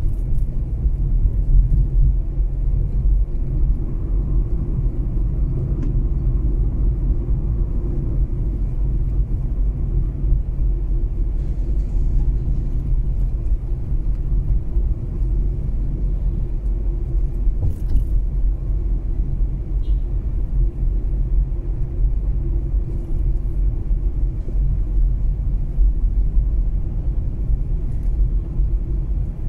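Mazda 3 being driven: a steady low rumble of engine and road noise that holds even throughout.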